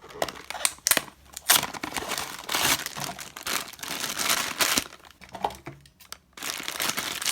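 Small cardboard blind boxes being torn open by hand and the wrapping inside crinkling, in irregular bursts of tearing and rustling with a few sharp snaps and a short pause about six seconds in.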